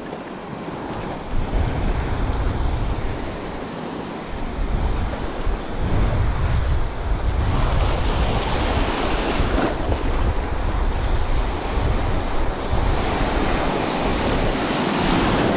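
Small sea waves breaking and washing around a wading angler, with wind buffeting the microphone; the surf surges louder about halfway through and again near the end.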